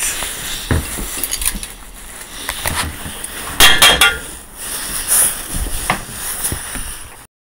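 Cooking pot and kitchen utensils clinking and clattering as spices go in, with one loud ringing metal clink about three and a half seconds in. The sound cuts off suddenly near the end.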